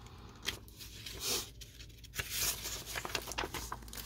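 Sheets of scrapbook paper rustling and sliding against each other as they are leafed through by hand, with louder rustles about a second and two seconds in.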